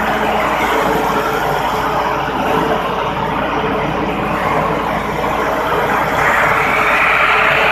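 Engine of a portable concrete pump running steadily under load, with a constant hum and mechanical noise that grows louder and brighter about six seconds in.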